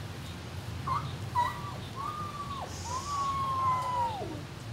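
A dog howling: a couple of short yips about a second in, then two long howls, each held on one pitch and dropping away at the end.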